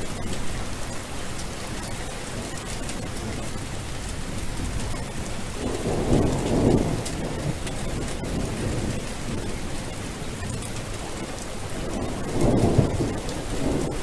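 Steady rain with two low rolls of thunder, one about six seconds in and another near the end.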